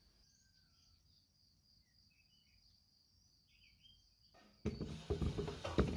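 Very faint steady high insect-like trill, likely a cricket, with a few faint chirps. About four and a half seconds in, sudden knocking and clattering of cookware being handled begins.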